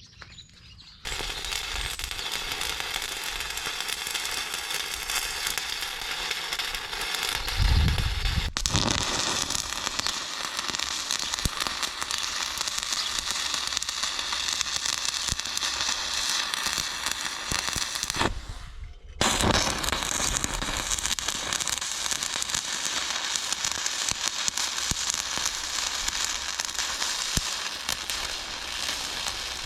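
Arc welding on the steel of a grass harrow: a steady, dense crackle and sizzle from the arc, in two runs with a short stop about two-thirds of the way through.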